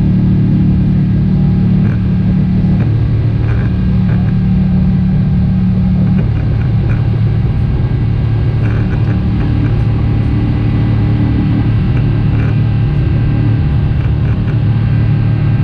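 Cabin noise of an Airbus A350-900 climbing after takeoff: its Rolls-Royce Trent XWB engines give a steady low rumble with a few humming tones that shift slightly twice.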